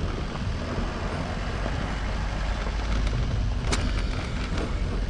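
Motor vehicle running, with a steady low rumble and hiss typical of wind on a moving rider's microphone. A sharp click or knock comes about three and a half seconds in, and two fainter ones follow.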